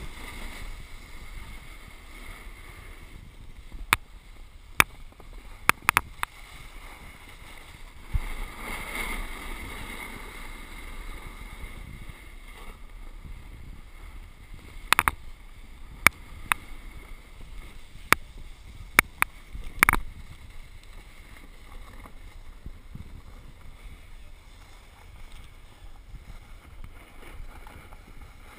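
Snowboard sliding over packed snow, a steady rushing hiss, with sharp clicks and knocks in two clusters: a few about four to six seconds in and more from about fifteen to twenty seconds in.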